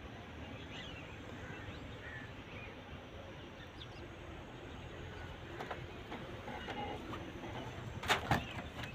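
Faint outdoor background noise with a few scattered faint chirps, then two sharp knocks about eight seconds in.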